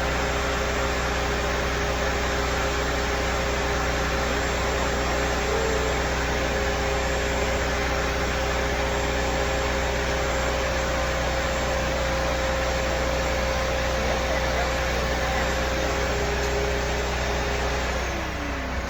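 Blow dryer running steadily with a whooshing airflow and a motor hum. Near the end the sound drops a little and the motor's note falls.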